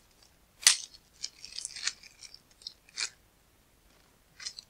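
Small plastic LEGO/Bionicle parts being handled: a sharp click about two-thirds of a second in, a quick run of small crackling clicks over the next second, another single click around three seconds, and a brief crackle near the end.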